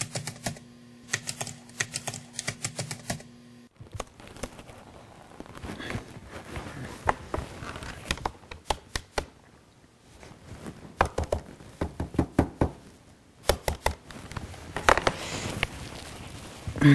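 Keys being typed on a keyboard: quick, irregular clicking. For the first few seconds it runs over a low steady hum, then comes in bursts with pauses, and a louder knock lands right at the end.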